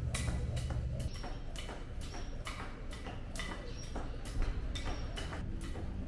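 Jump rope skipping on a tiled floor: the rope slaps the tiles and sneakers land in a steady rhythm, about three times a second.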